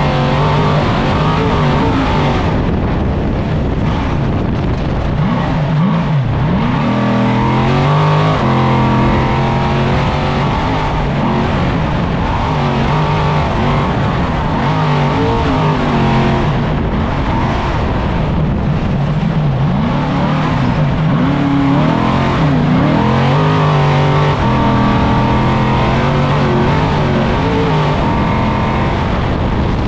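A 1000-plus-horsepower off-road Trophy Truck's engine at racing speed, heard from inside the cockpit. Its pitch rises and falls again and again as the truck accelerates and lifts off, over a constant rush of wind and running noise.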